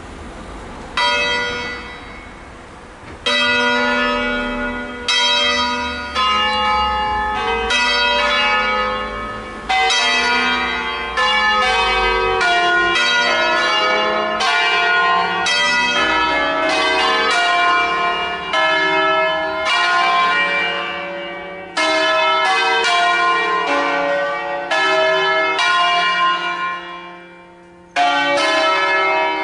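A peal of six church bells cast by Crespi of Crema in 1885 and tuned in D-flat, struck one after another in a funeral concerto. Each stroke rings on over the next. The strokes begin about a second in, die away shortly before the end, and one more stroke follows near the close.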